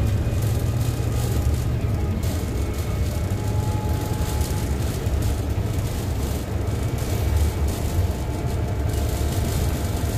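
Inside a city bus travelling at speed: a steady low drone of engine and drivetrain, mixed with road and wind noise.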